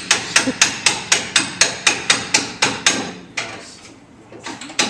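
Rapid hammer blows, about four a second, driving a part through during an engine and transmission install on a 1969 Camaro. The hammering stops a little past halfway, then starts again near the end.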